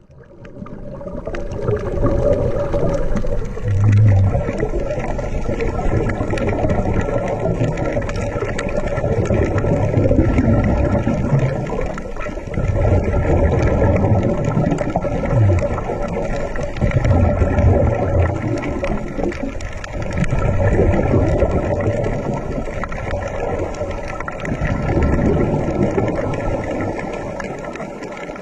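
Underwater ambience: a continuous low rumbling water noise with a steady hum, swelling in deep surges every few seconds.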